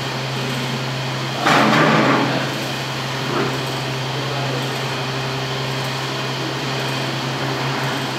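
Masking tape being peeled off a painted wall, one short rip about one and a half seconds in and a fainter one soon after, over a steady low hum.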